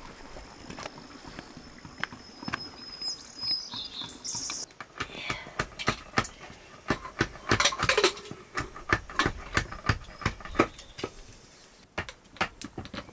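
An irregular run of sharp knocks and clicks, about two or three a second, starting around halfway through, with a high thin call, bird-like, a few seconds in.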